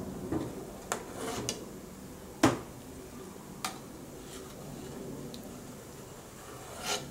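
Metal ladle tapping and scraping against a metal stockpot while foam is skimmed off simmering pork-bone broth. There are about half a dozen sharp clinks, the loudest about two and a half seconds in, over a low steady background of the broth simmering.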